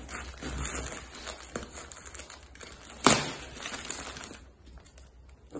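Scissors cutting through packing tape and the plastic wrapping of a parcel, with crinkling of the plastic and one sharp click about three seconds in.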